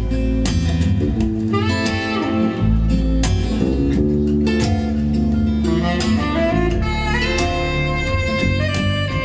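Instrumental break of a song: guitar lead lines with bending notes over strummed guitar and bass, played back through KEF Q100 speakers.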